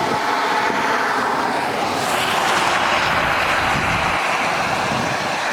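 Steady rushing noise of a car on the move: tyre and wind noise, swelling a little about two seconds in.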